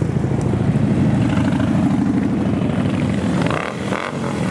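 Motorcycle engines rumbling steadily as a mass of bikes rides past, easing off briefly near the end.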